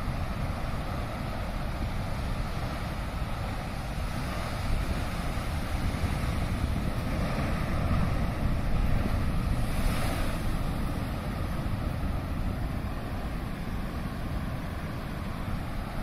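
Rough-sea surf breaking onto a rocky shore: a steady rush of waves, with wind rumbling on the microphone. It swells a little about halfway through.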